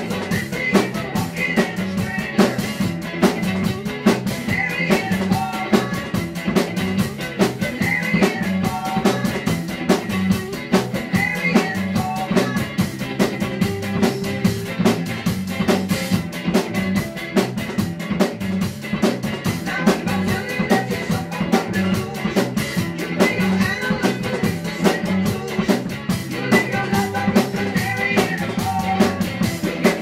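Rock song played back while an acoustic drum kit is played along with it: a steady snare and bass-drum beat with cymbals, keeping time with the recording.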